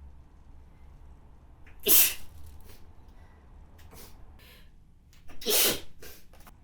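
A person sneezing twice, a loud sneeze about two seconds in and another near the end, with short, fainter noises between them.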